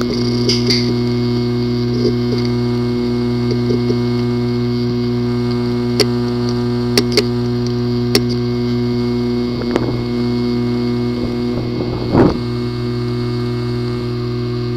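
Failing hard disk drive giving a steady hum, with sharp irregular clicks every second or so and a louder clatter near the end. It is the clicking of a bad drive whose disk assembly is physically damaged.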